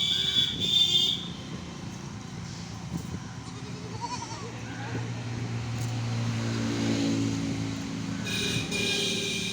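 A goat kid bleating: one loud, high call at the start and another near the end. In between, a low engine hum swells and fades.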